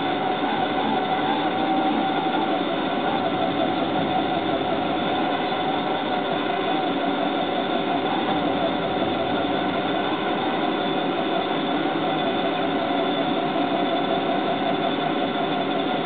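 Drive of a Voith-Schneider propeller tug, heard from on board, running steadily: an even mechanical whine over a low hum, holding its pitch with only a slight waver.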